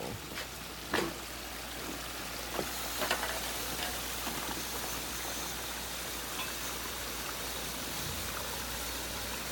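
Water running and trickling over the rocks of a pondless waterfall, a steady splashing hiss that grows a little louder about two seconds in, with a brief click about a second in.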